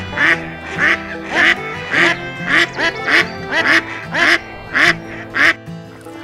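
A duck quacking in a steady series of about ten loud, raspy quacks, roughly two a second, which stop about five and a half seconds in. Background music plays underneath throughout.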